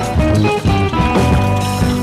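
Background music: a guitar-led rock track with a steady bass line.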